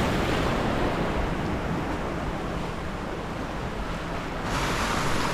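Sea waves breaking and washing over shoreline rocks in a steady, rushing surf, the wash brightening about four and a half seconds in.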